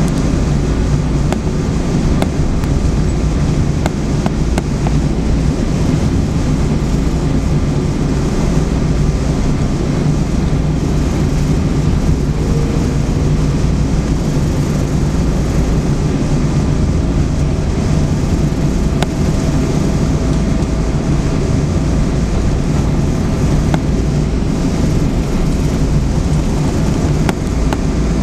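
Steady low cabin rumble of a Boeing 777-200ER taxiing, with engine and airframe noise heard from inside the passenger cabin. A faint thin whine joins about halfway through and holds.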